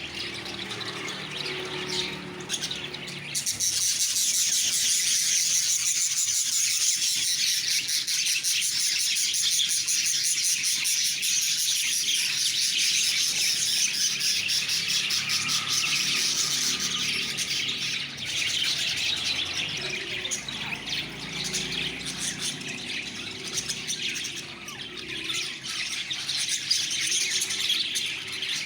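Lovebirds chirping and chattering continuously, many calls overlapping, growing louder a few seconds in and easing off somewhat near the end.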